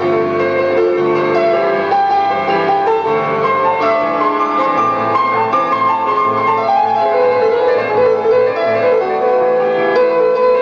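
Instrumental music: a keyboard melody over held notes, with no voices.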